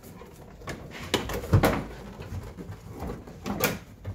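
A Ford Festiva's plastic dashboard being lifted and shoved out of the car, knocking and scraping against the interior in several clunks, the loudest about a second and a half in.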